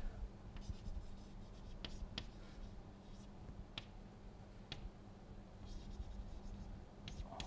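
Chalk writing on a blackboard: faint scratching strokes with a few sharp taps as the chalk strikes the board, over a low steady hum.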